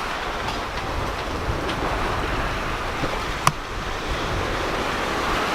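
Sea water rushing past a sailing yacht under way, with wind buffeting the microphone. A single sharp click about three and a half seconds in.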